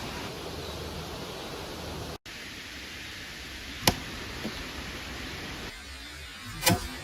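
An atlatl-thrown dart with a quartzite stone point striking a spaghetti squash target: a sharp crack about four seconds in and another short, sharp sound near the end, over a steady hiss of outdoor background noise.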